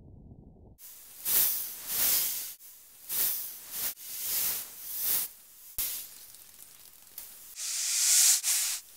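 A series of hissing noise swells, about one a second, with a longer, louder swell near the end.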